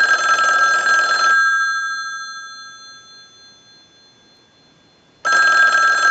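Western Electric 500 rotary desk telephone's bells ringing on a ring cycle from a test set. A ring cuts off about a second and a half in and the gongs die away. After a quiet gap, the next ring starts just past five seconds. The bells are freshly repaired and ringing properly.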